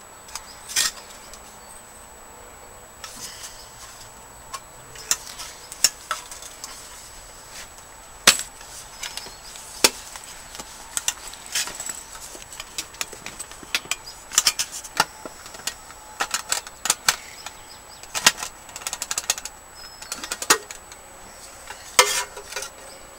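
Polish military mess kit being worked open and handled: irregular clicks, knocks and light clinks of its metal parts and fittings, some in quick clusters.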